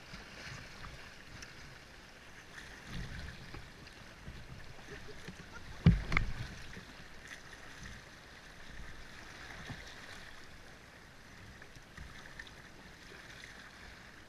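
Fast-flowing river water rushing and splashing around a paddled boat's hull, with low buffeting underneath. Two sharp knocks come close together about six seconds in.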